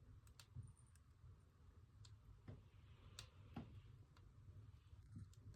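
Logs burning in a wood stove: faint, irregular crackles and pops, about eight sharp ones, over a low steady rumble.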